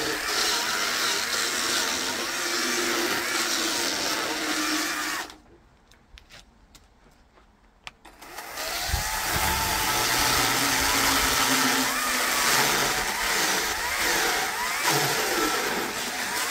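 Chainsaw running under load as it cuts through green logs, its pitch wavering. It breaks off abruptly about five seconds in, leaving a few seconds of quiet with small knocks, then runs again from about eight seconds in until near the end.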